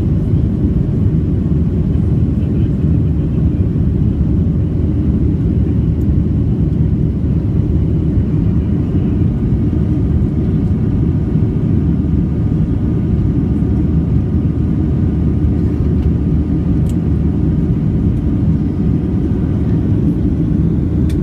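Boeing 737-700's CFM56-7B jet engines heard inside the cabin as a steady, loud rumble with faint steady whining tones above it.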